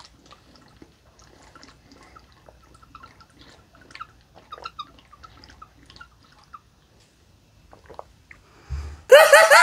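Water being sipped through the spout of a Waatr PureMax 4D purifier bottle: faint, intermittent squeaking and gurgling as the water is drawn through the dense filter cartridge. A short, loud vocal exclamation about nine seconds in.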